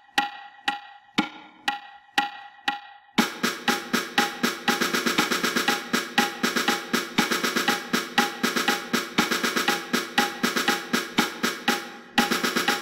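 Metronome clicking steadily about twice a second through a two-bar rest, then a snare drum comes in about three seconds in, playing a march pattern of rapid sixteenth notes mixed with eighth notes over the continuing click.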